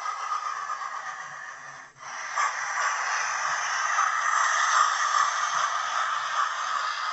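Hornby Flying Scotsman TTS sound decoder playing steam hissing through the model locomotive's small speaker, dropping out briefly about two seconds in.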